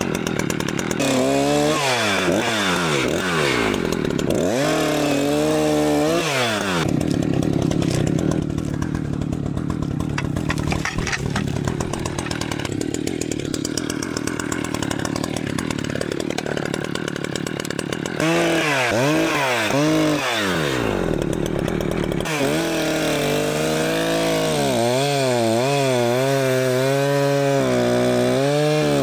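Two-stroke chainsaw cutting hickory at high revs. A few times, about a second in, around five seconds in and again near twenty seconds, the pitch drops away and climbs back as the throttle eases off and reopens. Toward the end the pitch wavers up and down under load in the cut.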